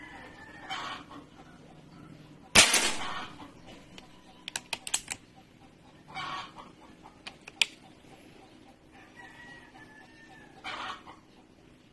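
A single sharp shot from a .22 PCP air rifle about two and a half seconds in, the loudest sound, followed by a quick run of metallic clicks and one more click a few seconds later, typical of the bolt being cycled to load the next pellet. Chickens cluck now and then in the background.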